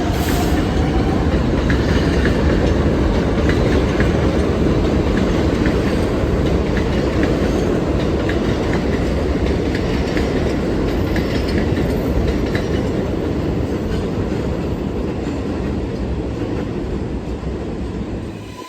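New York City Subway train running through the station, a loud steady rumble of wheels on rail with light clicks from the rail joints, easing off slightly near the end.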